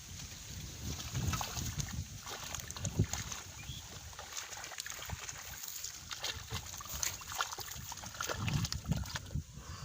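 Shallow water sloshing and splashing in irregular bursts as hands grope through it for fish.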